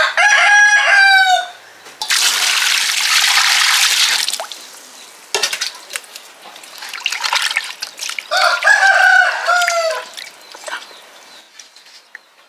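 A rooster crows twice, once at the start and again about eight seconds later, each crow dropping at its end. Between the crows, water pours and splashes in a metal basin holding freshly caught tilapia.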